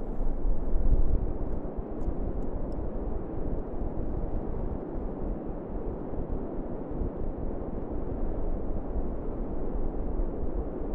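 Strong wind blowing across the microphone: a steady rushing noise with heavy low buffeting that rises and falls in gusts.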